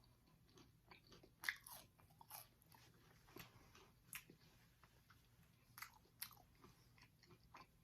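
Faint, close chewing of food: irregular wet mouth clicks and smacks, a few louder than the rest.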